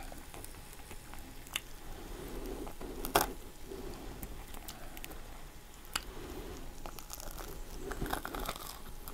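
Close-miked eating and food-handling sounds of a Philly cheesesteak: soft crinkly rustling of the bread and meat, a few sharp clicks, the loudest about three seconds in, and a bite into the roll near the end.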